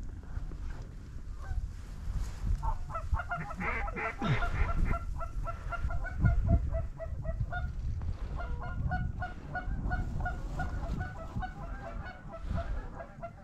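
Goose honking: a rapid string of calls, several a second, in two long runs with a short break in the middle.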